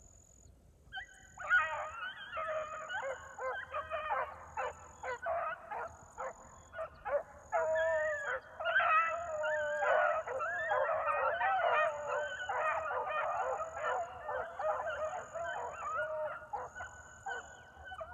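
A pack of beagles baying on a rabbit's trail, several hounds voicing over one another. The calls begin about a second and a half in and grow into a fuller, continuous chorus about halfway through.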